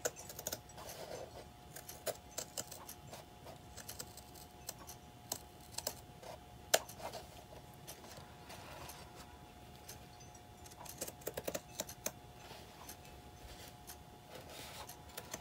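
Scissors snipping through painted fabric: short crisp cuts in irregular runs with pauses between them, the sharpest click a little before the middle.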